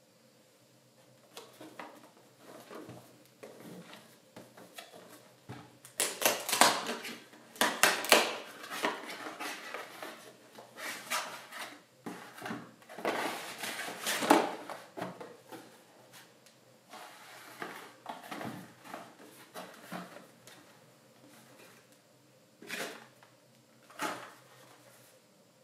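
Cardboard packaging being opened and handled by hand: irregular rustling, scraping and tearing of a frozen-food box, loudest about six to eight seconds in and again around thirteen to fourteen seconds in. Near the end a small cardboard box is turned over and set down on the placemat with two short knocks.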